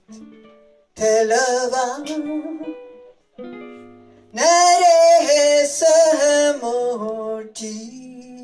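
Ukulele orchestra playing while a woman sings into a microphone, in two sung phrases over plucked chords. The music dies away near the end.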